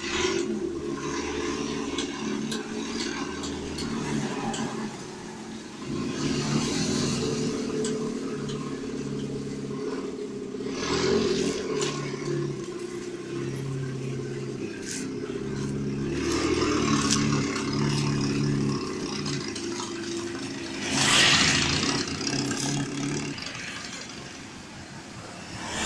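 Motor vehicle engine running, with surges of revving about ten seconds in and again near the end.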